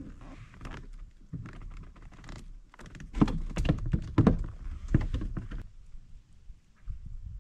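A run of knocks and thumps on a plastic fishing kayak as gear is handled aboard, busiest and loudest from about three seconds in until near six seconds.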